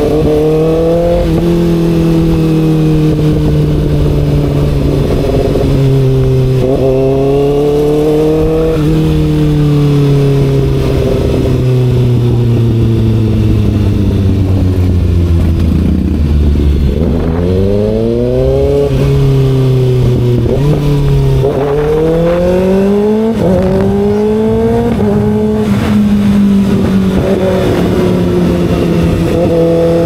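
Kawasaki ZX-6R's 636 cc inline-four engine under way, accelerating and easing off. The pitch climbs and drops back at each gear change, falls slowly around the middle as it slows, then rises again through a run of quick upshifts before settling to steady running near the end.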